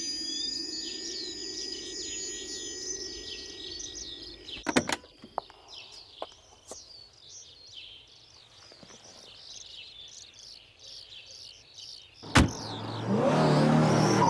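Birds chirping, with a few sharp clicks in the middle. Near the end a car door shuts with a single loud slam, and the car's engine starts and revs as it pulls away.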